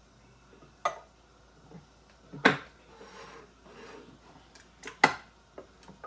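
Sharp clanks and knocks of metal cans and cookware being handled and set down, the loudest about two and a half seconds in and another about five seconds in.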